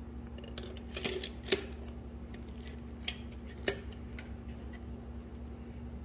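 Short sharp clicks and knocks of a wall-mount bracket against a Wi-Fi access point's housing as the two are handled and fitted together, about four of them, over a steady low hum.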